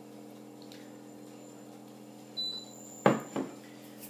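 Two sharp knocks about a third of a second apart, about three seconds in, most likely the emptied glass mixing bowl being set down hard on a surface. A short high clink comes a little before them, and a steady low hum runs underneath.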